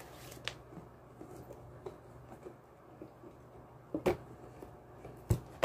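A few short clicks and knocks of a cardboard gift box and its contents being opened and handled, over a low steady hum.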